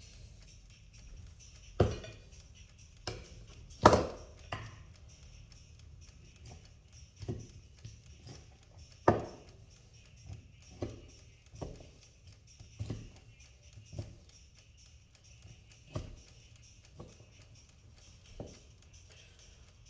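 Irregular clinks and taps of a utensil against a plate as pieces of rib and chips are picked up and set down, about a dozen in all, the loudest about four seconds in.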